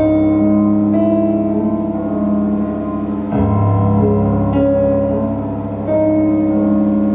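Instrumental music: slow sustained chords on a keyboard over a deep bass, changing every second or two.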